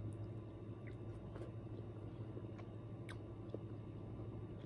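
A person chewing food close to the microphone, with a few faint, scattered mouth clicks, over a steady low hum.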